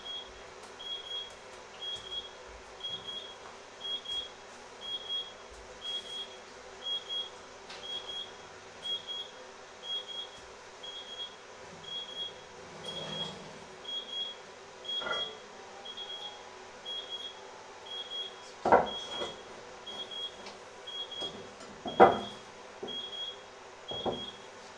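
Kitchen clatter: a few knocks of cookware and dishes being handled and set down on a wooden worktop, the two loudest about three quarters of the way through. Under it a faint high electronic beep repeats steadily, a little faster than once a second.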